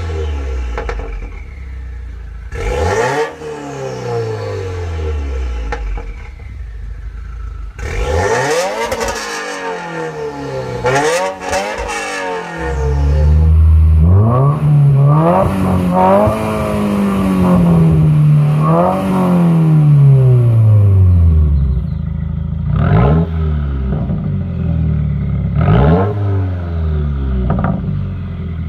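A 2015 Subaru WRX's turbocharged 2.0-litre FA20 flat-four being revved at a standstill, heard at the exhaust. First come sharp blips through a catless J-pipe on the stock exhaust, then longer, louder rises and falls through an aftermarket quad-tip exhaust. Near the end there are short blips through a muffler delete.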